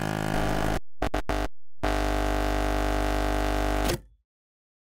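Electronic synthesizer sting of steady held tones. It breaks into a quick stutter of short cut-outs about a second in, is held again, and cuts off abruptly near the end into silence.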